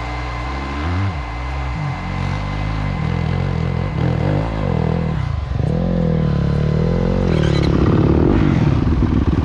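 Dirt bike engine revving up and down, getting louder toward the end as the bike comes closer.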